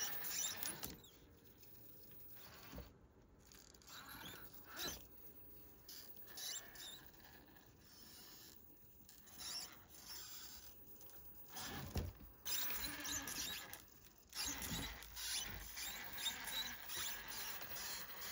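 Axial Wraith RC rock crawler picking its way over wooden blocks: quiet, irregular squeaks, scrapes and knocks of its tyres and drivetrain on the wood, with one louder knock about twelve seconds in.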